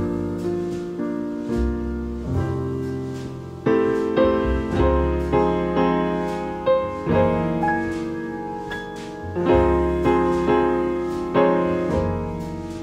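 Piano music: notes and chords struck one after another and left to fade.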